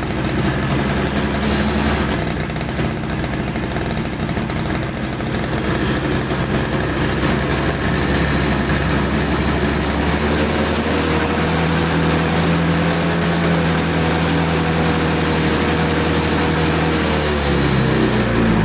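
Toro Snow Commander snowblower's small engine running steadily just after a cold start at 8 °F. Near the end its speed drops, the pitch sliding down.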